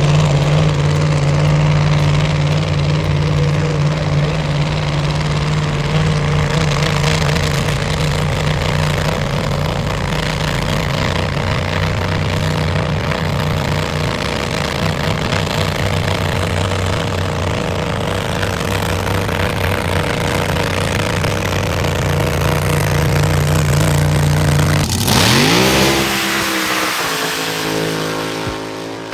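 Car engine held at steady high revs, a loud constant note. About 25 seconds in the pitch drops away, and the sound fades near the end.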